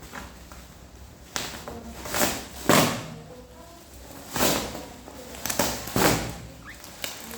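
Phone packaging being handled during an unboxing: a series of about six short rustling, scraping swishes, the loudest a little under three seconds in.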